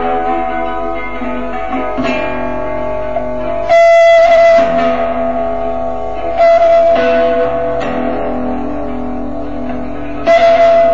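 Guitar playing slow, ringing notes, with a new note or chord struck every one to three seconds. The loudest strikes come about four seconds in and near the end.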